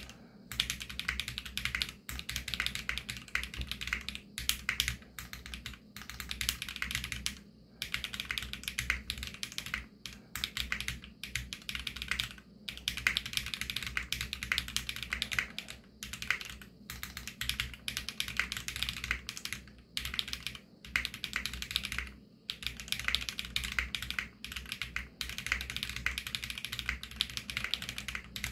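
Fast typing on an AJAZZ x VARO SAN AC067 65% mechanical keyboard with Krytox-lubed Varo Panda tactile switches and PBT keycaps: dense runs of key clacks broken by brief pauses every few seconds.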